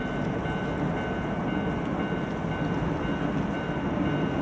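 Electric train running across a steel girder railway bridge: a steady rumble of the wheels on the bridge with a few faint steady high whining tones over it, growing slightly louder as it draws nearer.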